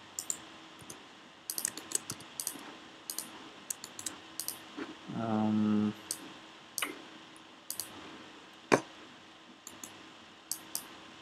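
Quiet, scattered clicks of a computer mouse and keyboard, some in quick little runs, with one sharper click near the end. A short hummed "mm" from a voice about five seconds in.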